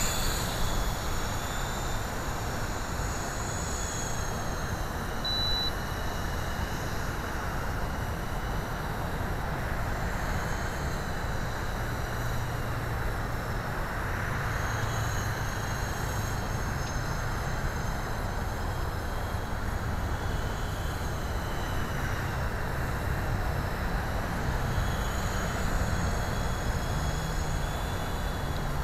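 Electric coaxial RC helicopter (eSky Big Lama) in flight: a high motor-and-gear whine that rises and falls in pitch now and then over a steady rushing rotor noise.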